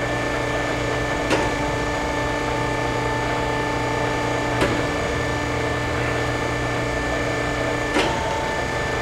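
Swisher Mark V vertical-spindle surface grinder running its automatic sweep cycle: a steady mechanical hum and whine, with three sharp clicks about three seconds apart where the whine's tone shifts.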